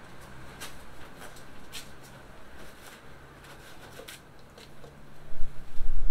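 Paper towels crinkling and rustling as a brined raw chicken is patted dry, with a handful of separate sharp crackles. Near the end, a gust of wind rumbles loudly on the microphone.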